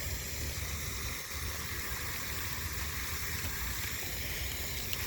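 Steady outdoor ambient noise: an even rushing hiss with a low, flickering rumble beneath it, no distinct events.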